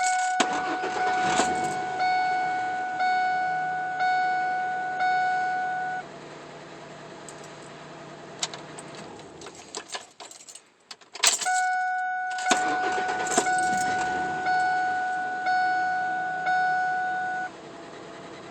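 Ford F-150 dashboard warning chime dinging about once a second, in two runs of about six dings each with a pause between. Keys jangle and rattle as each run begins.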